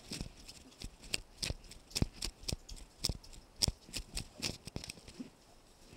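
Irregular sharp clicks and soft taps, about two or three a second, from movement close to a body-worn camera: handling and footstep noise on a hard floor.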